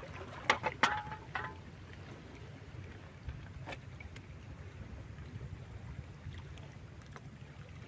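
Steady low rumble of wind and sea water along a rocky shore, with a few sharp clicks and knocks in the first second and a half and one more about halfway through.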